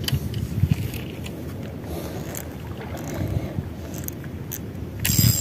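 Uneven low rumble of wind buffeting the microphone, with a few faint clicks. A short, loud hiss comes about five seconds in.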